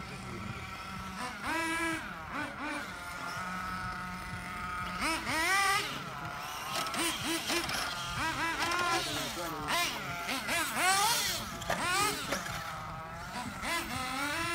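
Several radio-controlled off-road cars racing on a dirt track, their motors whining, with the pitch rising and falling over and over as the cars speed up and slow down.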